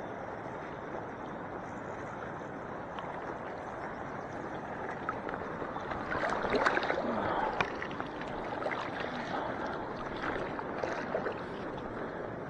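A steady hiss, then from about six seconds in, sloshing and splashing of feet wading in shallow lake water. The splashing is loudest for the first couple of seconds and then goes on more unevenly.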